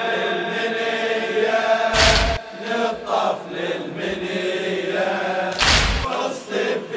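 A group of male mourners chanting the latmiya refrain together in a slow, drawn-out unison, with two heavy thumps about two and six seconds in.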